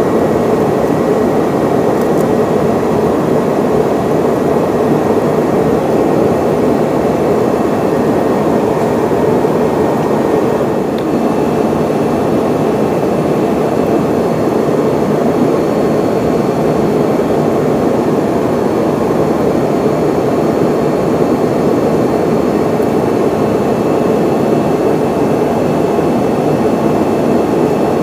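Steady cabin noise of a Yakovlev Yak-40 in flight: the rumble of its rear-mounted Ivchenko AI-25 turbofan engines and the airflow, with a faint high whine on top.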